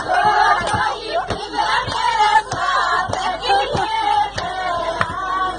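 Several women singing together to rhythmic hand clapping, about three claps a second, in a crowded metro coach.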